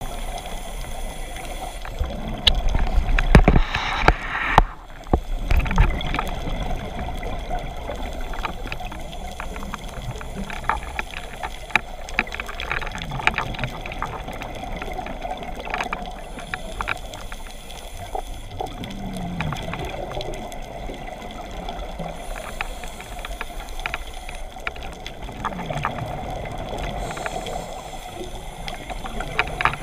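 Underwater ambience on a reef dive: a steady watery hiss scattered with small crackling clicks. A louder low rush of water comes about two seconds in and lasts a few seconds.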